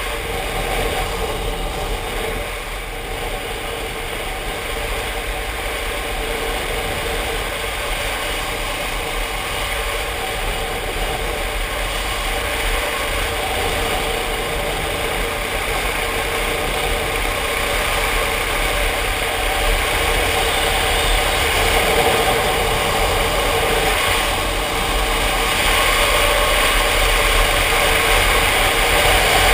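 Motorcycle engine running steadily at road speed, with wind noise on the microphone; it gets slightly louder toward the end.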